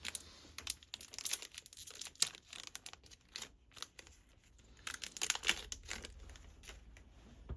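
Trading cards and their packaging being handled: crinkling and rustling. It comes in two spells, the first two seconds or so and again about five seconds in, with a few sharp clicks.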